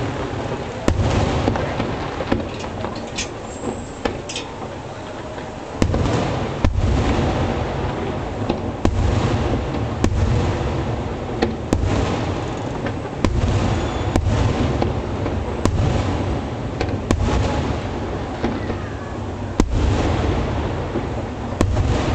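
Aerial firework shells bursting in quick succession, sharp bangs about a second apart, each followed by a low rumble. The bangs thin out a couple of seconds in and come thick again from about six seconds in.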